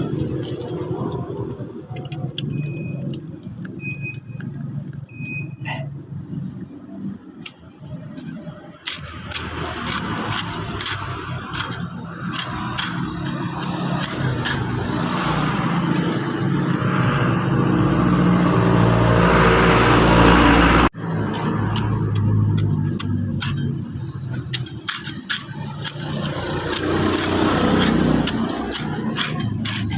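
Metal scraper rasping old, loose paint off a concrete wall in quick repeated strokes. Under it a motor vehicle's engine hum grows louder, then cuts off suddenly about two-thirds of the way through.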